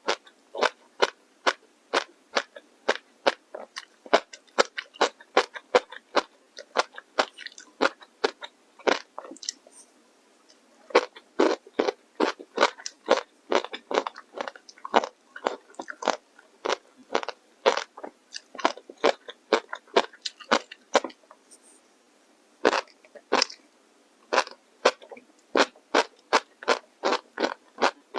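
Close-up chewing of crisp, crunchy food: a fast run of sharp crunches, about two to three a second, pausing briefly about ten seconds in and again around twenty-two seconds.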